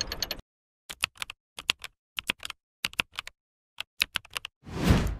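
Keyboard keys clicking in short runs of typing, a few quick clicks at a time with gaps between. Near the end a loud rushing burst cuts in and is the loudest sound.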